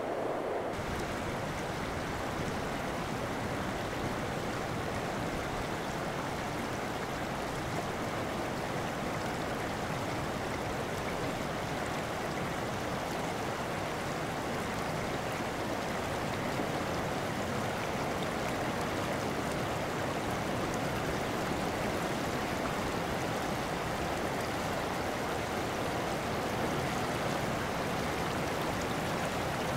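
Shallow coastal creek flowing over cobbles and gravel: a steady rushing ripple of water.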